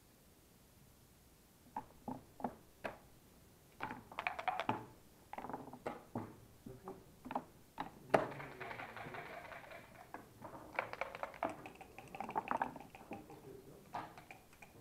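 Backgammon play: a run of light clicks and knocks of checkers being moved on the board, starting about two seconds in. A sharp click comes near the middle, then dice rattle in a dice cup and tumble onto the board.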